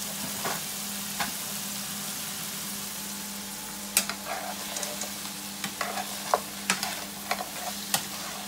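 Frozen mixed vegetables sizzling in a frying pan. From about four seconds in, a spoon scrapes and clacks against the pan as they are stirred. A steady low hum runs underneath.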